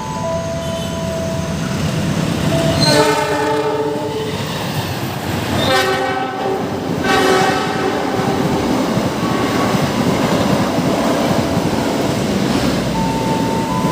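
A train running past over a steady rumble and wheel clatter, sounding its horn three times: one long blast about three seconds in, then two shorter blasts around six and seven seconds in. A thin steady whine is heard at the start and again near the end.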